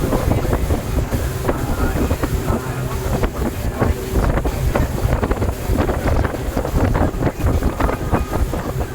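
Motorboat running at speed on the open sea, its engine rumbling under heavy wind buffeting on the microphone.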